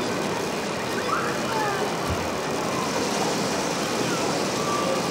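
Steady crowd hubbub of a busy exhibition hall, with scattered distant voices.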